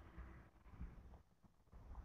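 Near silence: only a faint low rumble that fades out after about a second.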